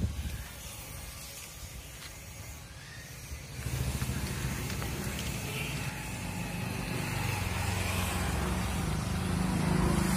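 A motor vehicle's engine running nearby, coming in about four seconds in and growing louder toward the end.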